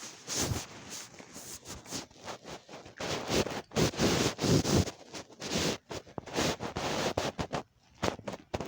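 Hands squishing and stretching a lump of thick homemade slime, with irregular rustling and scraping noises. The slime is being pulled until it tears.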